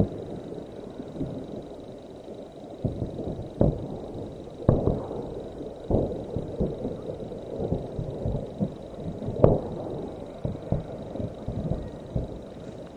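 Ammunition cooking off in a burning depot: an irregular string of bangs and pops over a continuous low rumble, with a few much louder cracks among them.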